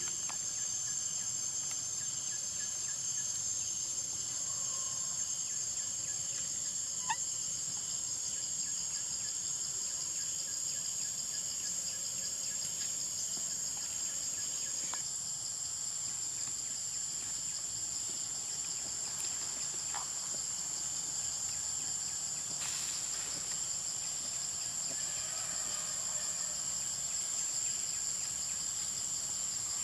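A steady, high-pitched chorus of forest insects droning without a break, with a few faint clicks over it.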